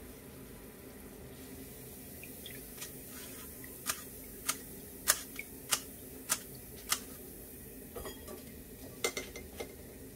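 Sharp metallic taps of a wire-mesh strainer and chopsticks knocking against a steel frying pan as a fried cake is lifted out, about ten clicks starting a few seconds in, some in quick pairs. Under them, a low steady sound of hot frying oil.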